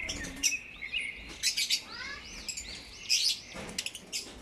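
African lovebirds chirping: many overlapping high-pitched chirps and short calls in quick runs.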